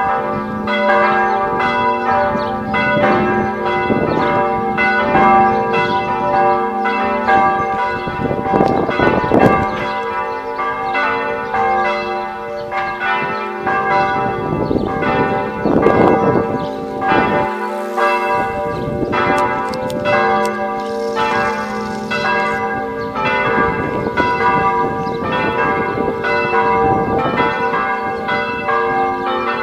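Several church bells ringing together in a continuous peal. Strokes follow one another closely, and each bell's long ringing tone overlaps the next.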